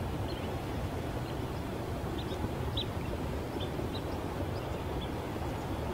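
Steady low outdoor rumble, with a scattering of faint, short, high chirps from small birds.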